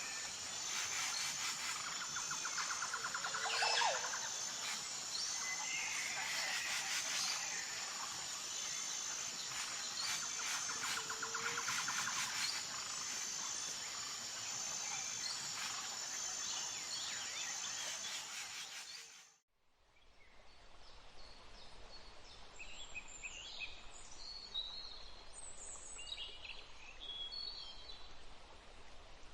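Forest ambience: a steady, high, pulsing insect trill with birds calling over it. The sound cuts off abruptly about two-thirds of the way through, giving way to quieter woodland with short, scattered bird chirps.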